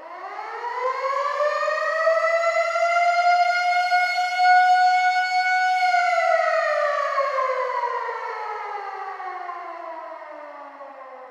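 Air raid siren winding up from a low pitch to a steady high wail, holding for about three seconds, then winding slowly down and still sounding at the end.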